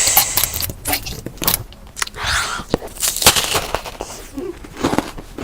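Close-up eating sounds: crunchy food being bitten and chewed, with a dense run of irregular crackling clicks and crunches.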